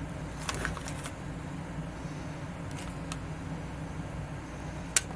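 Crinkling of a foil-lined blind-bag wrapper being handled as tiny plastic toy accessories are taken out, in a few short crackles about half a second in and again about three seconds in, then a sharp click near the end. A steady low hum runs underneath.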